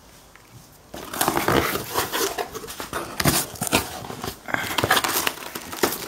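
Plastic wrapping and cardboard packaging rustling and crinkling as items are handled and pulled out of an opened box, starting about a second in.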